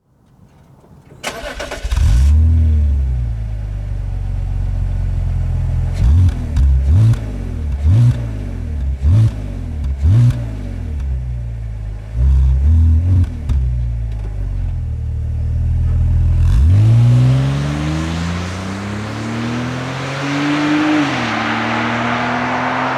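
BMW X3 E83's 3.0-litre M54B30 straight-six engine starting a little over a second in and settling to idle, then about five short throttle blips roughly a second apart and a longer rev. Near the end the revs climb steadily over several seconds and hold.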